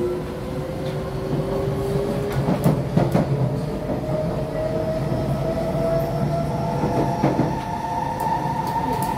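SMRT C151C metro train's traction motors whining, the whine rising steadily in pitch as the train accelerates away from a station, over running rumble. A few clusters of knocks from the wheels crossing track joints come about three seconds in and again near seven seconds.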